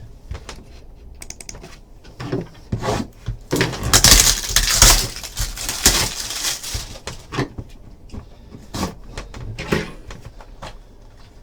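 A trading card box being opened by hand: scattered clicks and knocks of handling, with a loud rustle of packaging from about three and a half to five seconds in.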